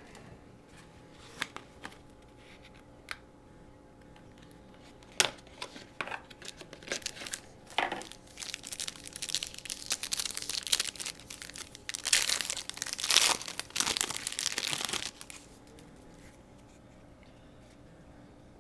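Foil wrapper of a trading-card pack being handled and torn open: scattered sharp crackles at first, then a long, dense stretch of tearing and crinkling in the middle, loudest near its end.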